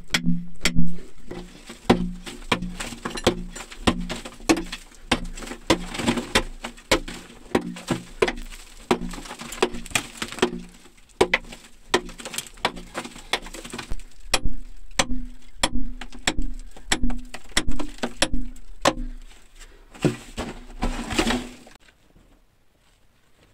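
Hammer striking a steel chisel against a rock wall, chipping out stone in quick repeated blows, about two a second, that stop near the end.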